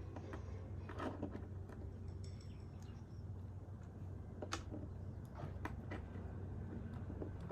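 Quiet background with a steady low hum, a few scattered sharp clicks and faint brief high chirps.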